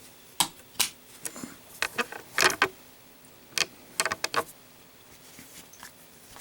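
Zippo windproof lighter being handled, a series of sharp metal clicks and clacks, some in quick pairs, stopping about four and a half seconds in.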